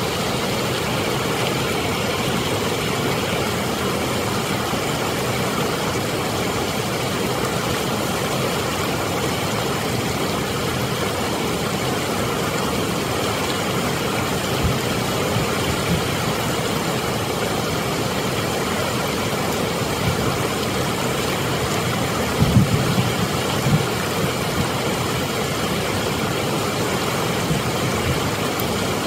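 Steady rushing of water pouring over a dam spillway and through rapids, with a few brief low thumps a little over twenty seconds in.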